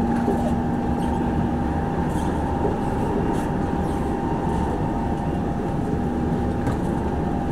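Inside an MRT train carriage running between stations: a steady rumble of wheels on track with a constant hum. A lower tone in the hum fades out a couple of seconds in and returns near the end.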